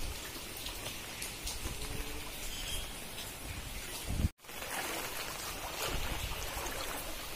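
Rain and moving floodwater in a flooded street, a steady wash of water noise. The sound drops out for a moment about four seconds in.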